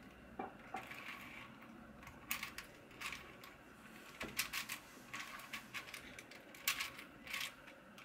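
A plastic 4x4 Rubik's cube being turned quickly by hand: an irregular run of faint clicks and clacks as its layers snap round while an algorithm is carried out.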